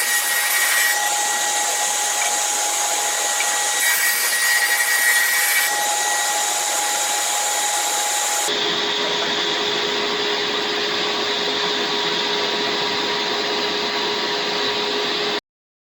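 Woodshop power machinery running steadily with a constant whine, a higher hiss coming and going a few times. About halfway through it changes to a different steady machine noise with a lower whine, then cuts off abruptly just before the end.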